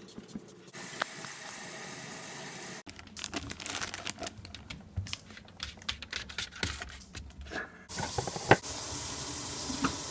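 Water running from a tap into a sink in two spells, with short clicks and knocks of handling in between.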